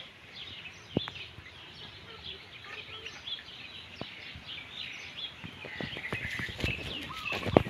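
Birds chirping outdoors, many short high calls throughout. A few sharp clicks stand out about one second and four seconds in, and a cluster of knocks and thumps comes near the end, the loudest of them just before it ends.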